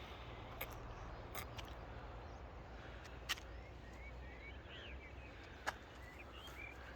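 Quiet outdoor background noise with a few short bird chirps in the second half, and several sharp clicks or taps, two of them louder.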